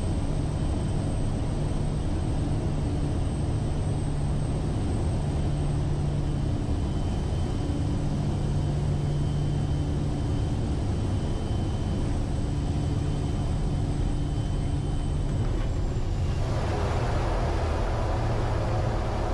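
Cockpit noise of a Quest Kodiak 100's Pratt & Whitney PT6A-34 turboprop and propeller on final approach: a steady drone with a thin high turbine whine. Near the end the whine dips and a louder rushing noise rises as the plane reaches the runway.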